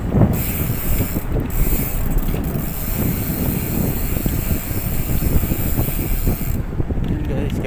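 Wind buffeting and rattling picked up by a phone in a chest-mount harness while riding along a street: a steady, rough rumble with many small clicks and knocks.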